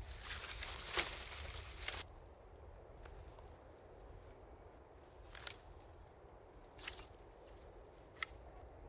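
Outdoor ambience: a steady high-pitched insect-like drone. A rustling noise with a sharp snap fills the first two seconds, and a few faint clicks come later.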